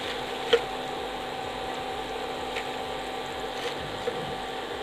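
Nendran banana chips deep-frying in coconut oil, a steady sizzle, at the stage when they are crisp and ready to lift out, over the steady hum of an induction cooktop. A single light clink of the metal slotted spoon against the pan about half a second in.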